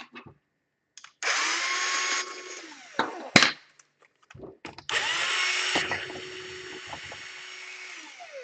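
Small electric screwdriver running twice, backing out laptop case screws: a short run of about two seconds, then a longer one of about three seconds, each ending with a falling whine as the motor spins down. A sharp click comes between the two runs.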